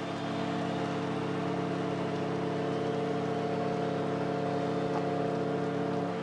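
Hockey arena's end-of-game horn: one long, steady chord of several tones that cuts off right near the end, over crowd noise.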